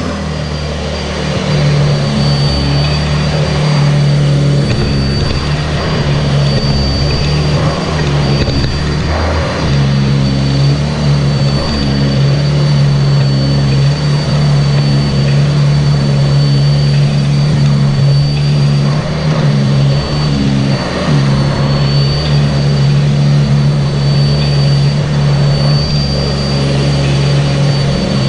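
Sanitaire SC679J commercial upright vacuum cleaner running steadily under load, a loud motor hum with a constant high whine, heard up close from a camera mounted on the vacuum. The low hum dips briefly about nine seconds in.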